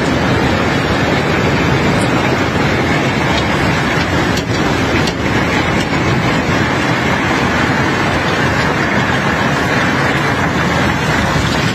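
Heavy machinery unloading cobblestones from a barge, running with a loud, steady noise and a few faint clicks.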